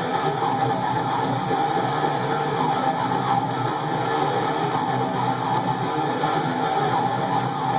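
Electric guitar, an ESP/LTD M17 seven-string, playing a heavy metal instrumental riff without a break.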